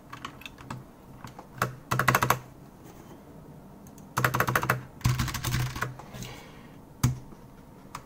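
Typing on a Keychron K4 keyboard fitted with optical red switches: a few scattered keystrokes, then three quick runs of rapid key clicks, and one louder single clack about seven seconds in.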